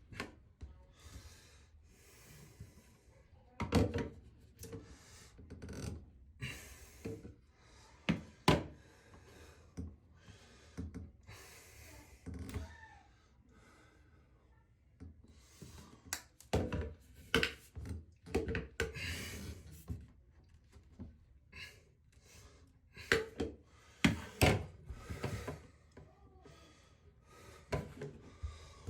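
Hand work on a shower floor drain and its pipework: irregular sharp knocks and clicks with scraping and rubbing between them, the loudest knocks about 4, 8 and a half, 16 and a half and 24 seconds in.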